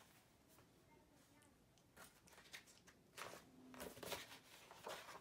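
Pages of a hardcover picture book being handled and turned: a run of crisp paper rustles starting about two seconds in.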